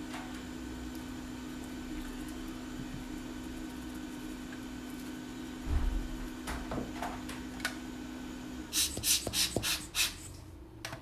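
Steady hum from bench equipment that cuts off after about nine seconds, with a dull knock and a few light clicks midway. Then comes a quick run of about six scrubbing strokes as the circuit board is brushed clean with alcohol.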